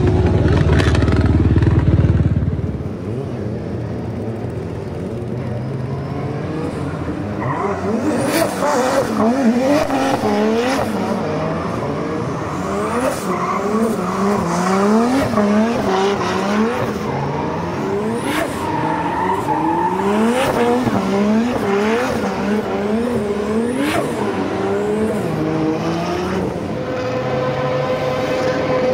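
A racing engine revving hard over and over, its pitch climbing and dropping about once a second, with a few sharp cracks in between. The first two seconds hold a heavy low rumble.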